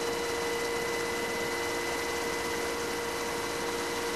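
HH-60G Pave Hawk helicopter in flight, heard from inside the cabin: a steady rushing noise with a constant whine.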